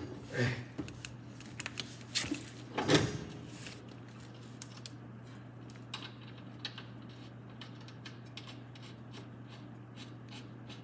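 Hand-tool clicks and a few metal clanks from working a coil spring compressor on a car's front coil spring, the louder clanks in the first three seconds and scattered light clicks after, over a steady low hum.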